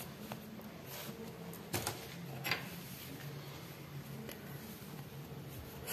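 Faint handling sounds of yarn being unwound and crocheted: a few soft clicks and rustles over a low steady hum.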